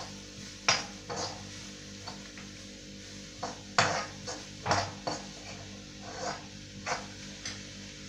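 A metal spoon scraping and clinking against a kadhai as grated cabbage is stirred, in irregular strokes. The sharpest knocks come about a second in and around four to five seconds in.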